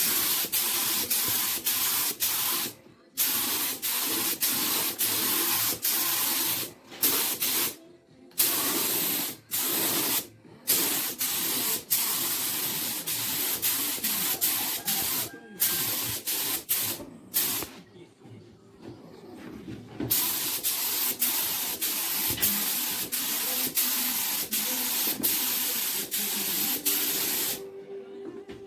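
Paint being sprayed onto a repaired car bumper: a steady hiss that comes in runs of a few seconds, cut off by short pauses, with a longer pause a little past the middle.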